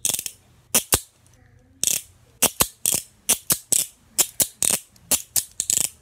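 Handcuff ratchet clicking as the cuff's swing arm is worked through the lock: an uneven run of sharp metallic clicks, about fifteen in all.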